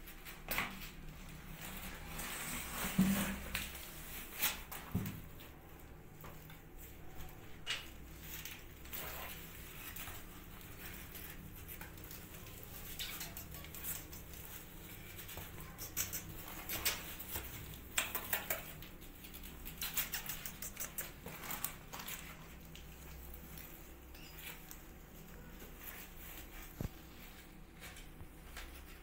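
Cats' paws scratching and rustling on cardboard inside a box: irregular light scrapes and clicks, with a soft knock about three seconds in.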